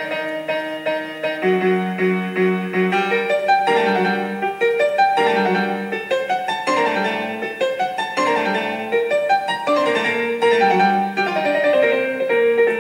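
Background piano music, a continuous run of notes and chords.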